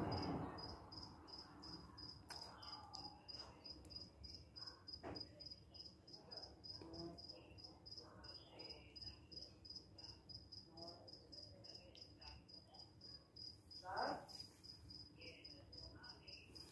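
A cricket chirping faintly in a steady, even rhythm, with soft rustling as a hand strokes the cat's fur and one brief louder sound about 14 seconds in.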